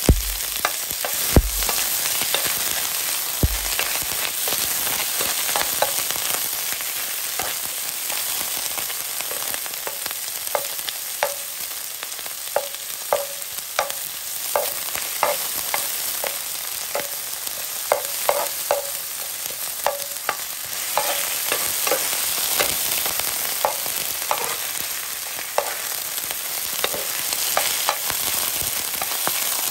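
Chinese kale and garlic sizzling in a hot oiled frying pan, with a steady hiss, while a metal spatula tosses the greens and knocks and scrapes against the pan in quick, irregular clicks. A few low thumps come in the first few seconds.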